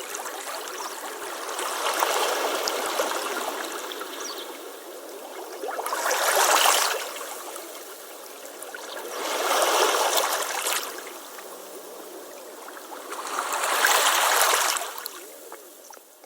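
Waves breaking on a beach, a surge about every four seconds, each swelling up and washing back, with a continuous wash between them; the sound fades out at the end.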